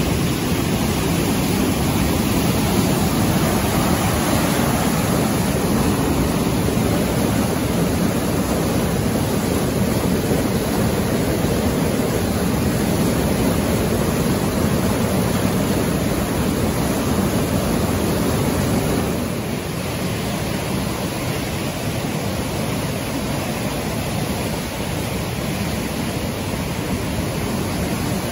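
Flood-swollen mountain creek rushing over rocks as whitewater rapids: a loud, steady rush of water that dips slightly about two-thirds of the way through.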